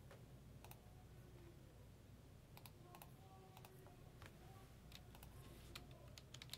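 Near silence: faint, scattered clicks of typing on a computer keyboard over a low steady hum.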